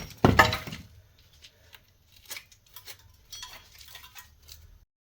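Metal tools and parts being handled during suspension disassembly: one loud ringing clank, then a run of lighter metallic clinks and taps. The sound cuts off abruptly shortly before the end.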